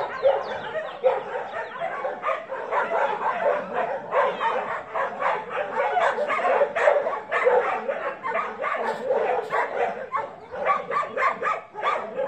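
Puppies yipping and barking in a rapid, unbroken stream of short, high calls, several voices overlapping.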